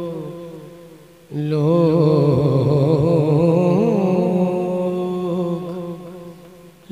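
A man's singing voice in a manqabat recital: a held note fades out, then about a second in a new long phrase begins, its pitch wavering in ornamented turns as it slowly fades.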